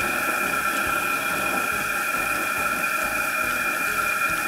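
Gas fish-fryer burner running under a carbon steel wok of water at a rolling boil: a steady rushing hiss of flame and bubbling, with a steady high tone.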